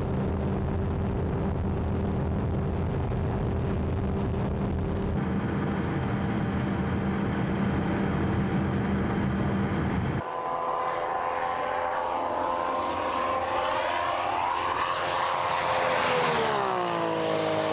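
RB26DETT twin-turbo straight-six of a tuned Skyline GT-R heard from inside the cabin, holding a steady high-speed drone at around 330 km/h. About ten seconds in, the sound cuts to the car heard from outside as it comes up and passes, its engine pitch dropping as it goes by.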